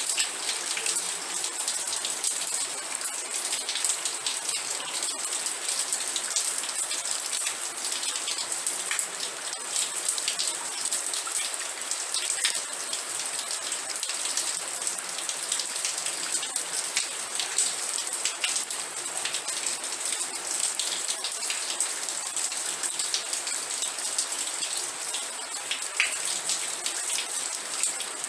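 Steady rain with dense raindrop patter, a constant high hiss with many small drop clicks.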